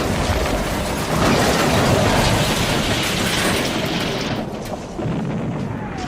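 Crash-and-explosion sound effects: dense rumbling noise with clatter and knocks. It is loudest from about a second in and dies down to a low rumble in the last seconds.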